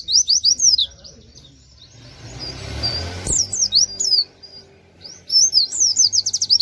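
A white-eye (pleci) singing its rapid 'tembakan' song in three quick bursts of high, swooping whistled notes, the last breaking into a fast run of repeated notes. There is a short rustling noise about two seconds in.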